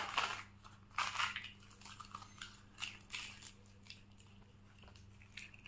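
Close-up eating sounds as luchi is torn and bitten: a series of short crackly bite and chew noises, most in the first three and a half seconds, then fainter.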